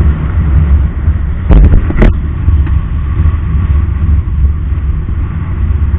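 Wind rumble and road noise on the camera microphone of a motorcycle moving at speed, a dense low buffeting with no clear engine note standing out. A few sharp knocks come between about one and a half and two seconds in.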